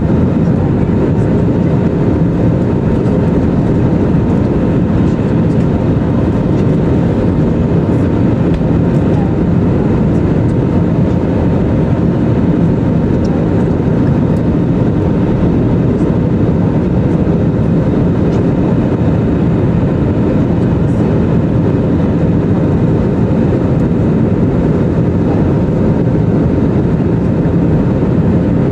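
Steady in-flight cabin noise of an Airbus A320neo: a low, even roar of airflow and its CFM LEAP-1A engines, unchanging in level.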